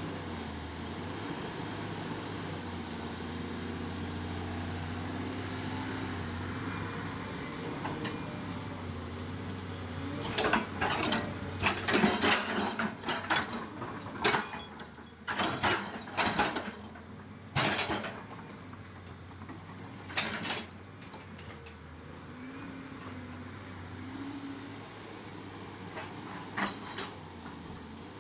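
An engine running steadily at low speed. From about ten seconds in, a long run of irregular loud knocks and clanks sounds over it for roughly ten seconds, with a few more near the end.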